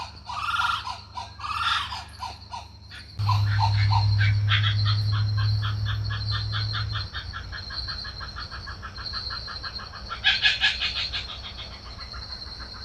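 Blue-winged kookaburra calling: harsh cackling laughter that builds into a fast run of rasping notes and peaks in a loud burst near the end. A steady high insect drone runs behind it, and a low hum sits under the middle part.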